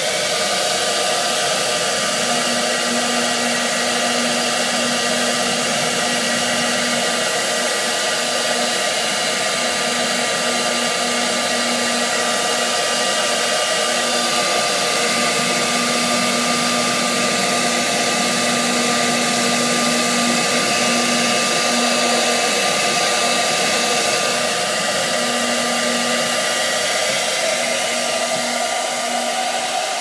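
Handheld hair dryer running steadily, blowing hot air into an iced-up freezer-to-refrigerator air vent to thaw it. A low hum under the rush of air comes and goes.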